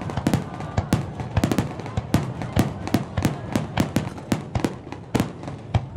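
Aerial fireworks shells bursting in a rapid barrage: many sharp bangs, several a second at uneven spacing, over a steady rumble of earlier bursts.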